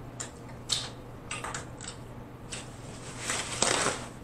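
Close-up eating sounds from snow crab: short crackling snaps of shell and meat being picked apart, then a longer, louder crackling rustle about three seconds in.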